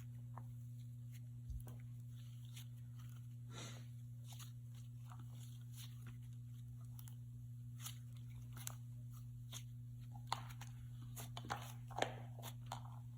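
Scented slime squished and stretched by hand, making scattered sharp clicks and small pops that come thicker near the end, over a steady low hum.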